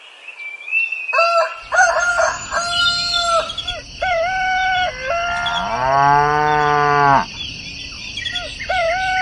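Farm animal sound effects: a string of short calls, then a cow mooing once for about a second and a half around six seconds in, then more short calls near the end.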